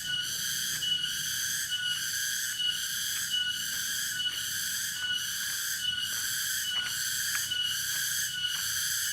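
Cicadas singing: a continuous high, shrill buzz that pulses evenly about twice a second.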